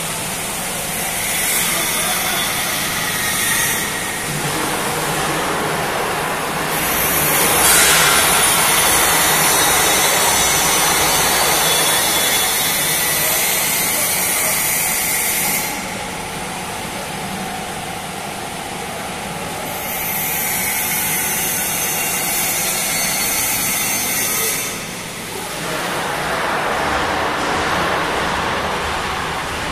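Machinery of a small-fish frying production line running: a steady low motor hum under a loud hiss that swells for several seconds at a time and then drops back, three times.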